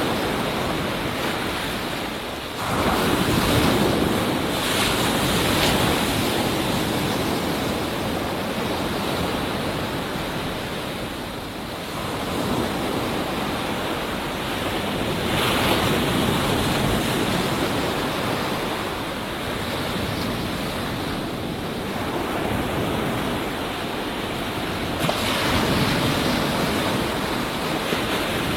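Ocean waves breaking on a beach, a continuous surf wash that swells and ebbs as each wave comes in, about every few seconds.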